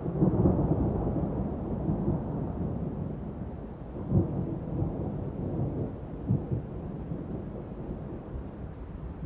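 Thunder rumbling low and continuous, loudest just after the start and slowly fading, with two short swells about four and six seconds in.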